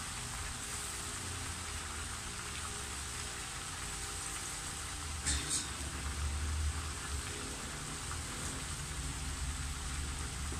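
Fish deep-frying in hot oil in a nonstick pan: a steady sizzle and crackle of bubbling oil. About five seconds in there is a brief louder clatter as a spatula stirs the fish.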